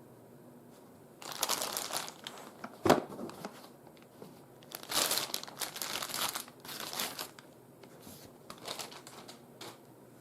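Handling noise: crinkling and rustling in bursts, with one sharp click about three seconds in.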